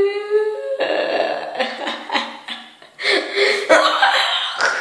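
A boy's voice making a held, drawn-out vocal noise for about a second, then laughing in short choppy bursts.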